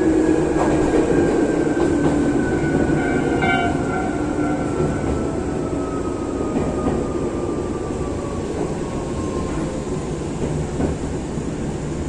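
Nagano Electric Railway 8500 series electric train, an ex-Tokyu 8500, running and slowing for a station stop. A steady wheel-and-rail rumble sits under a motor whine that falls slowly in pitch, and the train gets gradually quieter.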